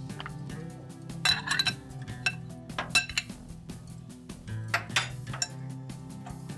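Kitchen utensils and dishes clinking and knocking, in short clusters about a second in, around three seconds and near five seconds, over steady background music.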